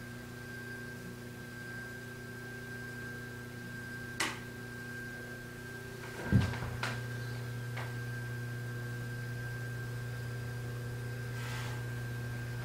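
Steady electrical hum with a few faint clicks and one sharper knock a little past the middle.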